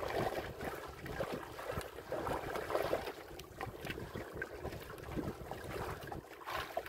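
Sea water sloshing and lapping against the hull of a small outrigger boat, with wind gusting on the microphone.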